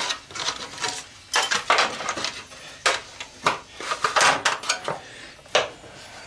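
Metal pry tool clinking and scraping against a glued-together part of a washing machine being pried apart for scrap, in irregular sharp clicks and scrapes.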